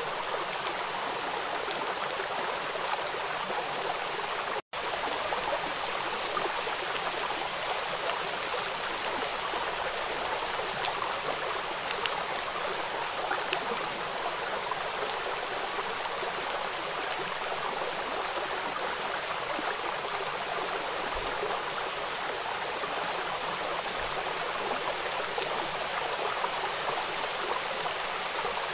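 Steady rain falling onto a wet, puddled surface: a dense, even hiss of many scattered drop splashes. About five seconds in, the sound cuts out for a split second.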